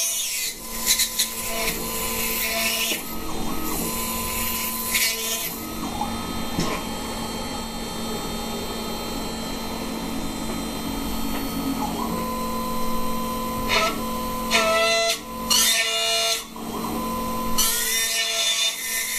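Water-cooled 2.2 kW spindle of a 6040 CNC mill cutting a thin aluminium plate under water flood coolant: a steady spindle whine, with harsher bursts of cutting noise that come and go several times as the cutter moves through the metal.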